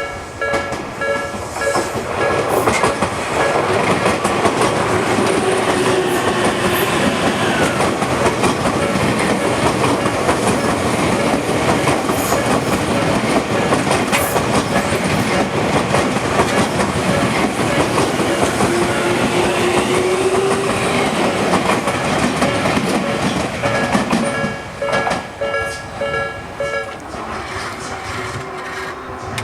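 Japanese level-crossing warning bell ringing in the slow Nikko Line-type tempo while an electric commuter train passes over the crossing. The wheels clatter over the rail joints and their run drowns the bell for most of the time. The bell is heard clearly again near the end as the train clears.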